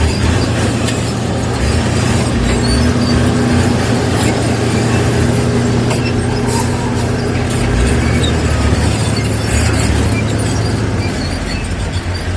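Komatsu bulldozer's diesel engine running steadily with a constant low hum, with scattered short clanks over it.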